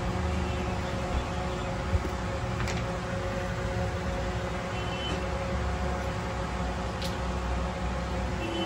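Steady background hum and noise with a few faint clicks.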